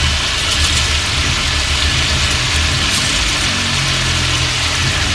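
Pork pieces sizzling in hot oil in a stainless steel pan, a steady hiss, over a low steady hum.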